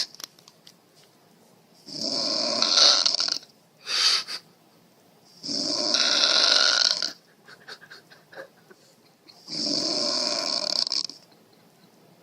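A person snoring loudly: three long snores about four seconds apart, with a short snort shortly after the first.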